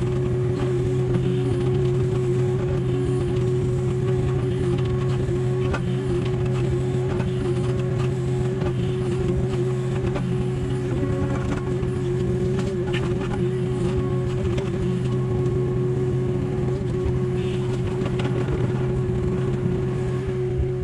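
Takeuchi TB285 mini excavator's diesel engine running steadily while the arm digs and lifts soil, heard from inside the cab, with a few faint clicks.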